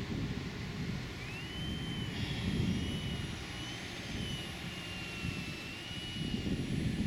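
Radio-controlled Aeroworks Su-31 aerobatic model plane flying, its motor and propeller heard as a thin whine that rises and falls in pitch as it manoeuvres, over a steady low rumble.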